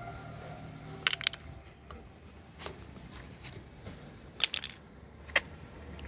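Sharp clicks and taps of handling at a car door's edge, in small clusters about a second in and again near the end, as the plastic cover cap over a VW Golf door's emergency key lock is pried out.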